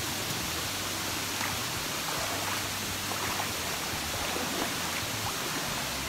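Steady rush of a waterfall cascading over rocks into a stream.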